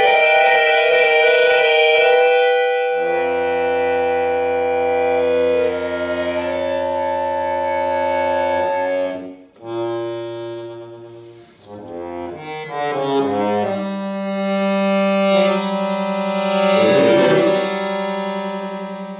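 Bayan (chromatic button accordion) played solo: loud sustained chords over long held bass notes, with a brief break about nine and a half seconds in, a run of quicker changing notes, then another long held chord.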